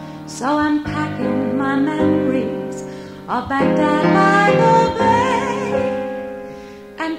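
A slow song: a woman singing over piano accompaniment, the piano striking new chords about every three seconds and letting them fade.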